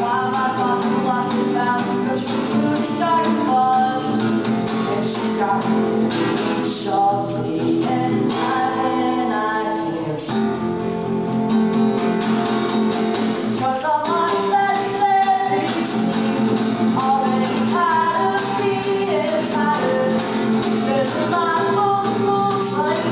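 A male singer performing an original song, his voice carrying the melody over his own acoustic guitar.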